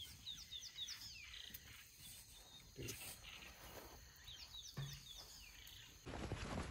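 Quiet outdoor ambience with a small bird giving quick runs of short, high, falling chirps, twice, and a couple of soft low thumps in between.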